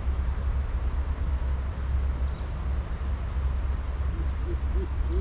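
Steady low rumble of wind on the microphone beside open water. About four seconds in, a run of short hooting calls begins, each one rising and falling and a little longer than the one before.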